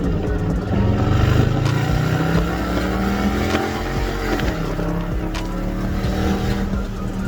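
Dodge Charger's 345 (5.7-litre) Hemi V8 pulling away under acceleration. The engine note rises over the first few seconds, drops a little after about four seconds as it shifts up, then holds steady.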